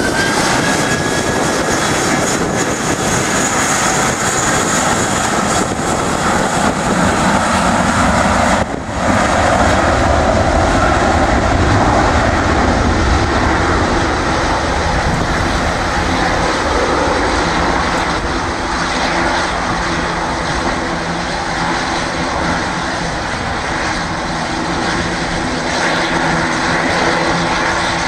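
Airbus A320-232 jetliner's twin IAE V2500 turbofans at takeoff thrust during the takeoff roll, the aircraft rolling past at speed and away down the runway until it rotates. A loud, steady roar with a high fan whine clearest in the first few seconds and a brief drop in level about nine seconds in.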